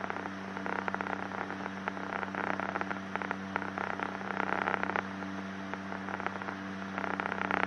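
Gulfstream Turbo Commander's twin Garrett TPE331 turboprops droning steadily in the cockpit on final approach, a constant low hum with irregular crackling static over it.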